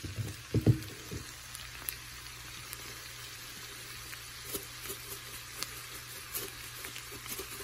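Shrimp sautéing with onion and chile in a frying pan, giving a steady, quiet sizzle with scattered small crackles. A few low knocks come in the first second.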